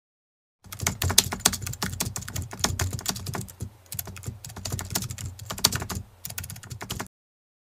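Rapid computer-keyboard typing, a stream of quick key clicks used as a sound effect for text being typed out. It starts about half a second in, thins briefly near the middle and again near the end, and stops abruptly about half a second before the end.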